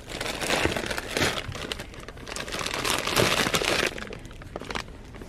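A large plastic bag of lollipops crinkling and crackling as it is picked up off the shelf and handled, easing off about four seconds in.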